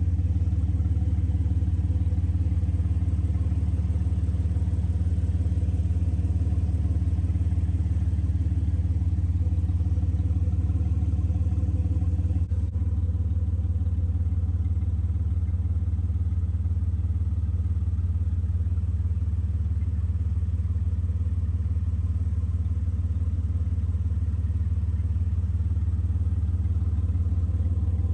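A 2005 Jeep Wrangler TJ's 4.0 L inline-six engine idling steadily, heard from underneath the vehicle near the exhaust. There is a brief dip about twelve seconds in, and after it the sound is duller.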